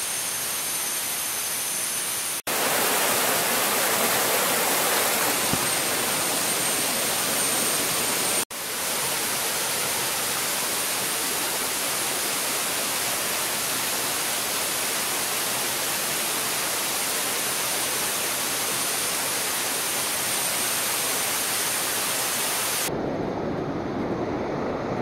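Steady rush of a rocky rainforest stream's flowing water. It breaks off for an instant twice, and near the end turns lower and duller.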